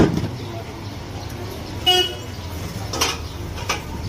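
Aluminium steamer tray clanking against the steel counter at the start, then a short vehicle horn toot from the street about two seconds in and two lighter knocks a second later, over steady traffic noise.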